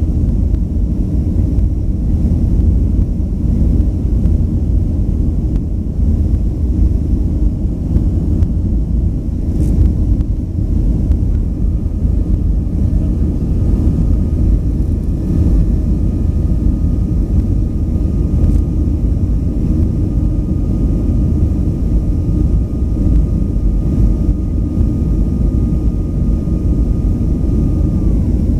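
Cabin noise of a Boeing 737-500 climbing after takeoff, heard inside the cabin over the wing: a loud, steady low rumble from its CFM56-3 turbofan engines and the rushing air. A faint steady whine joins about twelve seconds in and stops just before the end.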